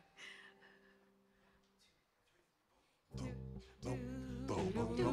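A faint held chord fades out, then about three seconds in a worship band starts a song: guitars strummed, with keyboard and voices singing together.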